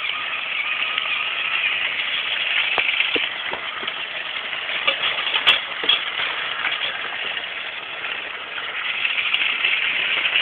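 Battery-powered TrackMaster toy train engine running along plastic track pulling coaches: its small electric motor and gears whir steadily, with a few light clicks.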